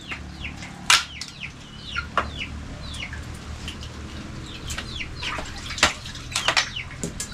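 Chickens calling in many short, falling chirps, with several sharp cracks and knocks of firewood being handled.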